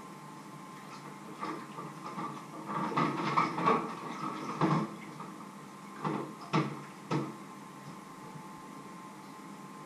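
Clatter of stainless steel cooking pots being handled: a run of clinks and knocks, then three separate knocks a half second apart, over a faint steady hum.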